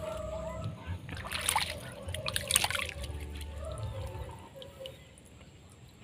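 Small splashes and gurgles of water in a flooded mud burrow as a big Asian swamp eel tugs at the baited line. A cluster of sharp splashes comes between about one and three seconds in, and it fades to quieter dribbling toward the end.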